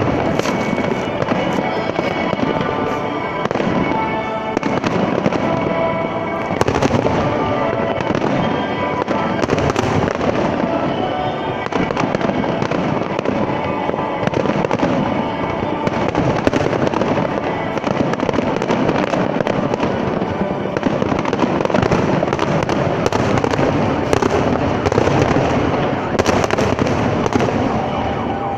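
Fireworks display: a dense, continuous run of bangs from bursting shells, several standing out as louder cracks, over music playing throughout.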